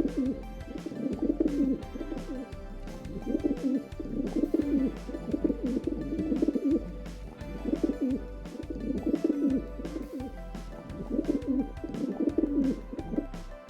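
Pigeon or dove cooing in repeated low, warbling phrases, over background music.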